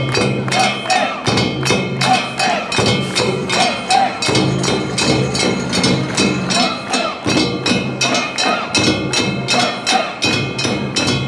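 Festival float music from the kawafune: a drum and ringing metal percussion beaten in a fast, steady rhythm of about four strokes a second, with a wavering pitched line and voices over it.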